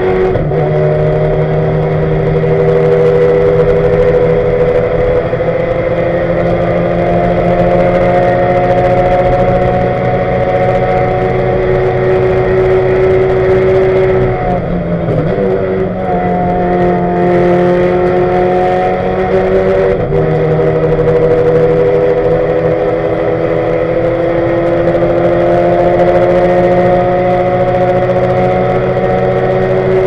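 Ford Focus race car's turbocharged engine under load, heard from inside the cabin. It pulls slowly up through the revs in one gear. The revs dip briefly about halfway and again a few seconds later, then keep climbing. The turbo has failed and the car is short of power.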